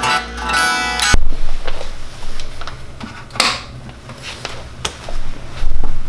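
Guitar cable jacks being handled and plugged into a Fender Deluxe Reverb amp. A loud buzz through the amp's speaker cuts off with a sharp pop about a second in, followed by scattered crackles, clicks and low thumps from the live cables.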